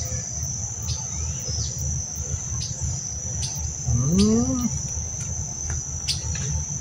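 A steady high-pitched insect chorus trilling continuously, over a low background rumble. About four seconds in, a brief pitched call rises and then falls.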